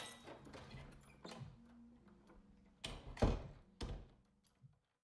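An apartment door being opened and shut: small clicks and rattles, then a heavy thud of the door closing a little past three seconds in, followed by another knock.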